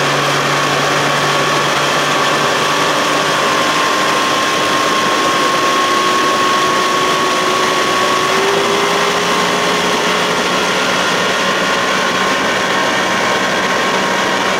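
Johnson 60 hp two-stroke outboard running steadily at planing speed under the load of a heavy new stainless steel prop, over a constant rush of wind and water. The engine note holds nearly level and runs smoothly.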